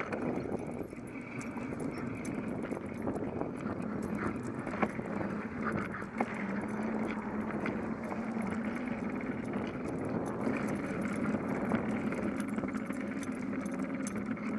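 Bicycle rolling along a concrete sidewalk: a steady rolling hum with scattered clicks and rattles from the bike.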